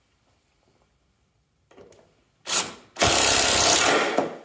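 Cordless impact driver running its bit down into a wooden block: a short burst about two and a half seconds in, then a steady run of about a second and a half that stops just before the end.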